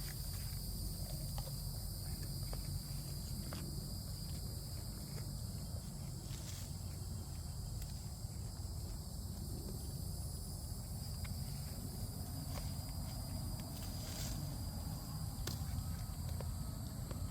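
Goats browsing on leaves: scattered crisp clicks and rustles of chewing and tearing foliage, over a steady high insect chorus and a low rumble.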